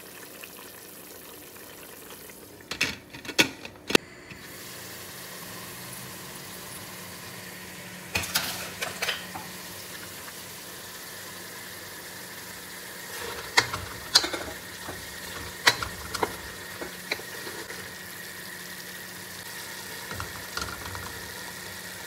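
A few sharp clinks as the pot's glass lid comes off, then minced beef sizzling steadily in an aluminium pot. A spoon stirs it and knocks against the pot now and then.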